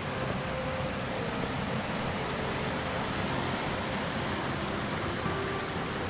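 Creek water rushing steadily over rocks and a small cascade below a road culvert.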